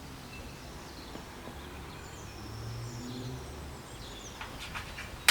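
Outdoor garden ambience: faint bird chirps and whistles over a low background hum, with a few light ticks and a sharp click at the very end.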